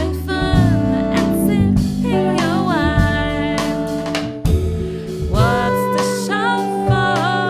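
Band playing a song live: a singer's melody over drum kit and a steady low accompaniment.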